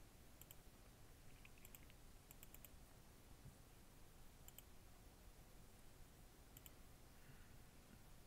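Faint computer mouse clicks, mostly in quick double-click pairs, a handful of times over near-silent room tone.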